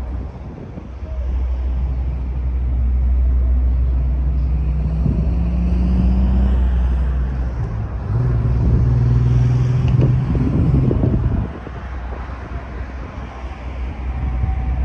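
Motor traffic passing close by: a steady low rumble with engine hums that rise and hold, easing off about eleven and a half seconds in.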